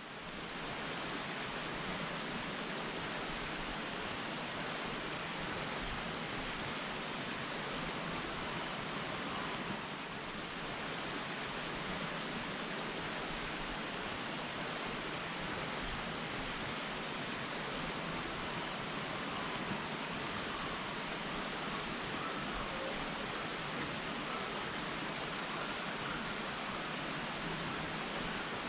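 Forest creek running over rocks: a steady rush of water.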